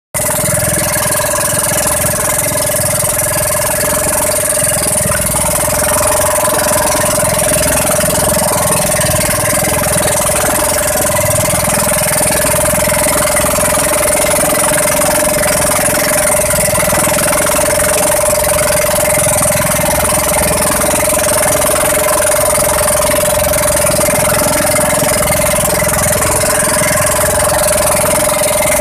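Outrigger fishing boat's engine running steadily at constant speed, a loud even drone with a strong held tone, over the wash of choppy water along the hull.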